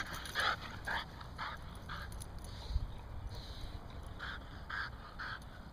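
A dog giving a run of short, high cries about two a second, pausing midway, then three more near the end.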